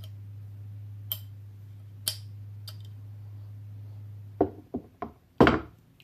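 A few small, sharp clicks of paintball marker parts being handled, then a quick series of louder knocks about four and a half seconds in, the last one loudest. A steady low hum underneath cuts off when the knocks begin.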